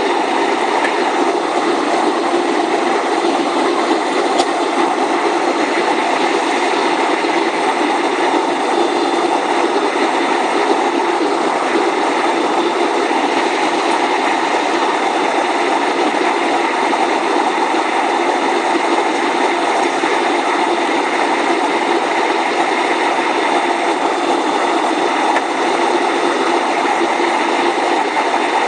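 Steady cabin noise of a jet airliner in flight, heard from a seat over the wing: an even rush of engines and airflow with a few faint steady tones running through it.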